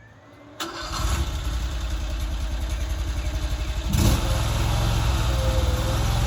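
The 23 hp RATO V-twin engine of a Vorx NL380 stand-on mini skid steer starting up about half a second in and then running steadily. Its level jumps suddenly about four seconds in, and a wavering whine joins near the end.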